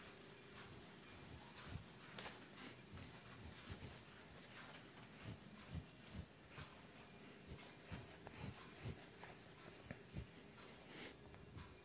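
Faint, repeated strokes of a handheld eraser wiping marker off a whiteboard.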